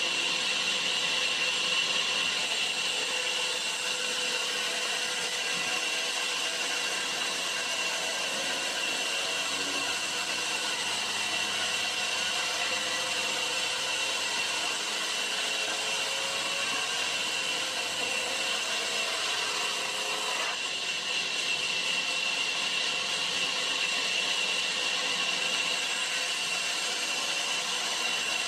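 Sawmill band saw running and ripping a thick timber plank lengthwise, a steady high whine over the even hiss of the cut.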